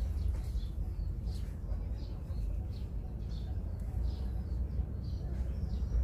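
A steady low rumble of background noise, with faint short high chirps, like small birds, scattered through it.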